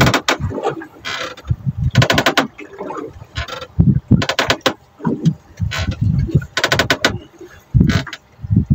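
Spinning fishing reel clicking in several short bursts of rapid ticks, irregularly spaced, with low buffeting on the microphone between them.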